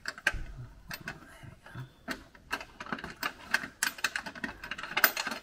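Irregular light metallic clicks and ticks as steel nuts are spun on by hand onto two bolts through a small metal mounting plate, the plate and nuts rattling against the bolt threads. The clicking comes faster in the second half.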